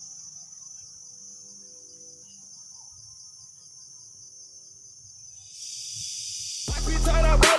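Steady, high-pitched drone of forest insects. About five and a half seconds in it swells, and loud electronic music with a heavy beat comes in near the end.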